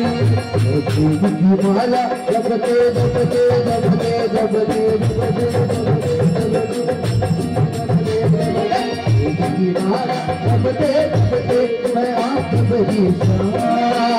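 Live bhajan music: a harmonium melody with keyboard over a steady drum beat from an electronic drum pad, with no clear lyric sung.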